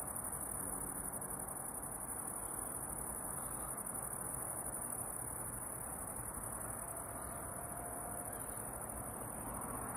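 Crickets chirping in a steady, high-pitched, fast-pulsing trill, over a faint low outdoor rumble.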